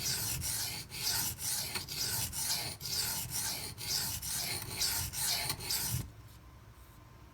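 Knife blade stroked back and forth on a silicon carbide sharpening stone, about two gritty scraping strokes a second, grinding chips out of a damaged edge. The strokes stop about six seconds in.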